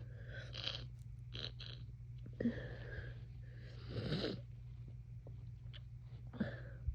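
Sniffing and breathing through a badly congested nose during a head cold: a series of short sniffs and breaths, the strongest about four seconds in. A low steady hum runs underneath.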